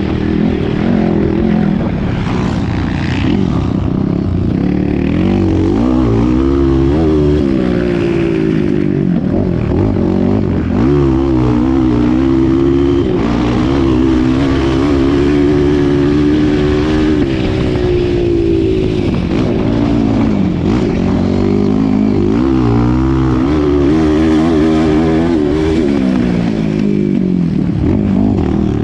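Honda CRF230 dirt bike's single-cylinder four-stroke engine heard from on the bike while it is ridden hard around a motocross track. The engine note climbs and drops over and over with throttle and gear changes.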